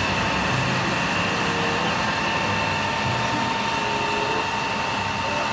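Water cannon on an Isuzu FVZ water tanker truck spraying a long jet of water. It makes a steady rushing noise with a faint steady whine.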